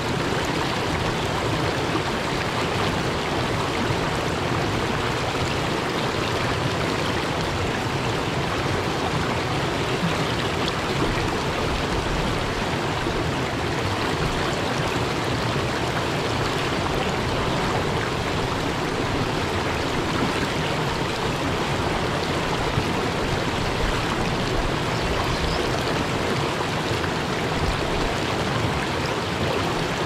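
Mountain stream rushing over boulders in small rapids: a steady, even rush of water.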